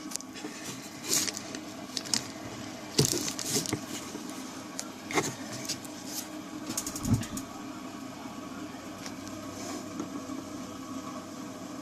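Scattered light clicks and knocks of a small transformer being handled during gluing, over a steady low hum.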